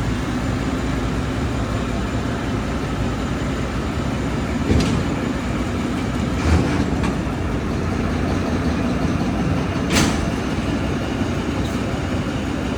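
Volvo heavy truck running steadily on the move, a deep, continuous rumble. Three sharp knocks or rattles come through it, about five, six and a half, and ten seconds in.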